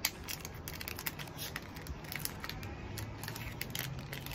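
Small crackles and clicks of a container of putty being opened and handled. A low steady hum comes in about three seconds in.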